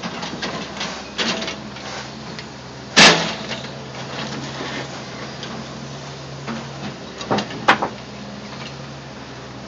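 Caterpillar 316C excavator bucket smashing scrap metal down in a dump truck trailer: sharp metal bangs, the loudest about three seconds in and two more close together later on, over the steady hum of the excavator's diesel engine.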